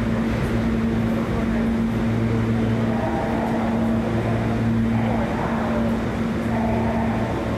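New York City subway train noise in a station: a steady rumble with a constant low hum underneath.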